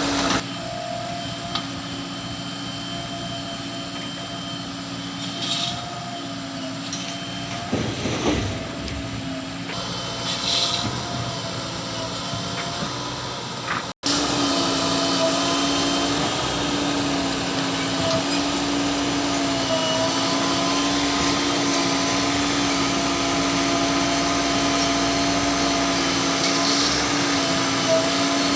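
JCB 3DX Plus backhoe loader's diesel engine running with a steady drone, with a short burst of noise about eight seconds in and a brief cut about halfway through.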